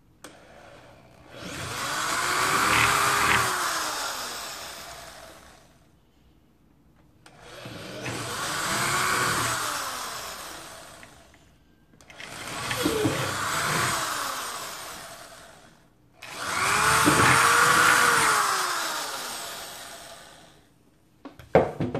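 Handheld electric drill boring holes through a plastic bucket rim, run four times in a row. Each run rises in pitch as the motor speeds up, then falls away as it slows.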